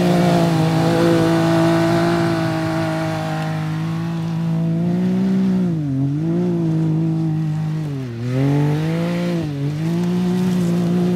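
Can-Am Maverick X3 XMR side-by-side engine running hard at steady high revs while it drives on the lake ice; the revs drop briefly and climb back three times, about six, eight and nine and a half seconds in.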